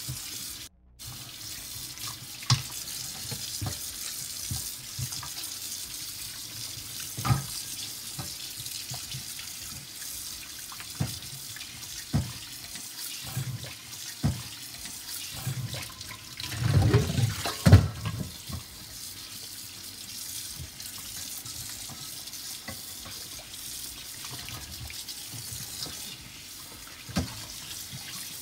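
Kitchen tap running into a stainless steel bowl of water in the sink while a whole raw chicken is rinsed and rubbed by hand. There are scattered knocks and a louder stretch of splashing and handling about two-thirds of the way through.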